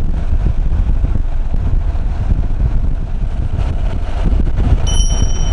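Honda NC750X parallel-twin motorcycle ridden at road speed: a steady low rumble with wind rushing over the microphone. A thin, high steady tone comes in near the end.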